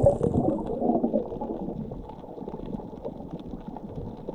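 Muffled underwater sound from a submerged camera: a low rumble with bubbling and faint crackles, louder in the first second and then steady.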